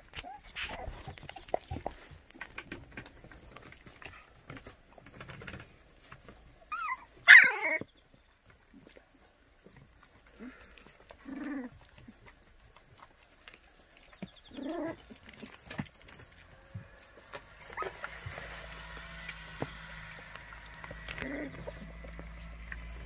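Young white baekgu puppies whimpering and squealing: one loud, high, wavering yelp about seven seconds in and a few lower whines later, with faint scuffling between.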